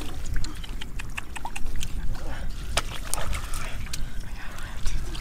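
Fish flopping and splashing in shallow muddy water as hands grab at them: a string of short wet slaps and splashes over a steady low rumble.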